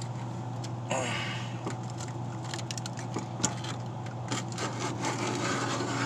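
A knife cutting and scraping through the silicone caulk that seals a refrigerator in place: a run of short, irregular scratchy scrapes over a steady low hum.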